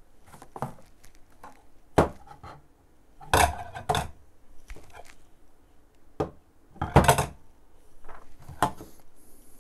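Plastic electronic kitchen scale handled and turned over on a wooden desk: several separate knocks and clacks of plastic against wood, with softer handling noise between them.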